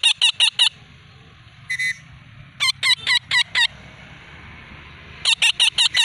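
Alexandrine parakeet calling: three bursts of quick, harsh, repeated screeches, five to seven in each burst, with a single rougher squawk between the first two.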